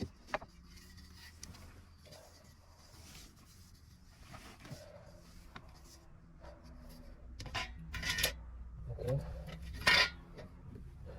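Scattered knocks, clinks and rustling from hands-on work in a loft: materials and tools being handled. A few sharper knocks stand out, around eight and ten seconds in.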